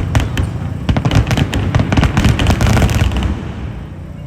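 Fireworks crackling and popping in rapid, dense succession, dying away about three seconds in.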